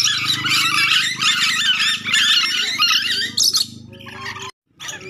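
Nuri dora (ornate lorikeets) chattering and screeching rapidly over a steady low hum. The calls thin out after about three and a half seconds, the sound cuts out abruptly near the end, and fainter calls follow.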